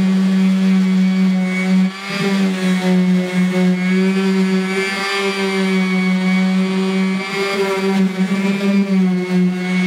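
Ridgid random orbital sander running steadily with a constant motor hum, its pad sanding cured body filler on a truck door's sheet-metal panel; the sound dips briefly about two seconds in.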